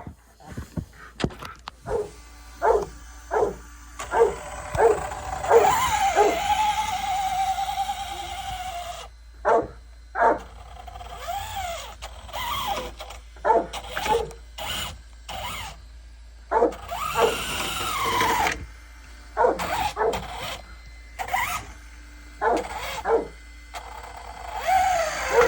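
A dog barking in short repeated barks, with a couple of longer drawn-out whines in between.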